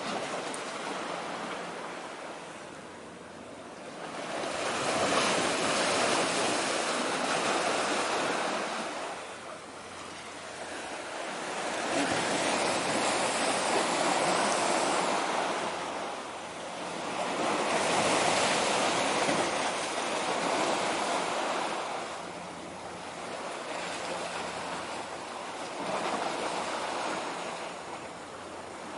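Small waves washing in on the shore and drawing back, a hiss that swells and fades about every six seconds.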